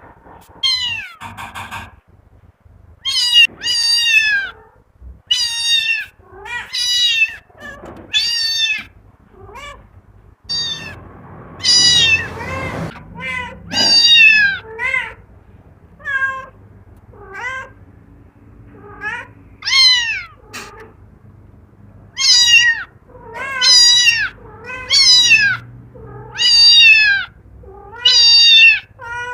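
Cat meows repeated over and over, about one a second, most of them falling in pitch. There is a short stretch of rustling noise about ten to thirteen seconds in.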